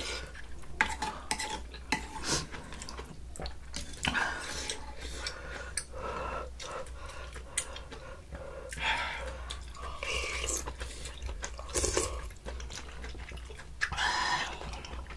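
Spoons and chopsticks clinking and scraping against bowls and dishes while eating soup. Irregular sharp clicks and short scrapes come through, with a steady low hum underneath.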